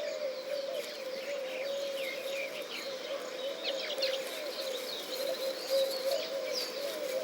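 Weaver birds chattering at their nests: many quick, short chirps and trills, over a steady, wavering lower tone.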